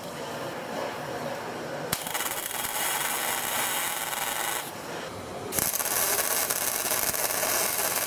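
A softer rubbing noise, then compressed air from a shop air tool hissing in two bursts of about two and a half seconds each. Each burst starts and stops abruptly, as a trigger is pulled and released.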